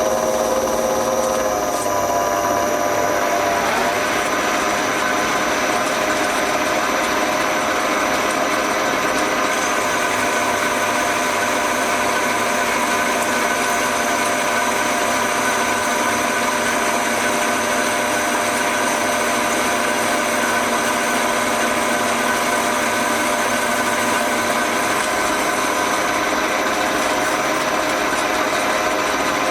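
Progres 380 metal lathe running steadily, turning the gearbox adapter plate to just under its finished dimension, with a continuous whine of many steady tones from its drive.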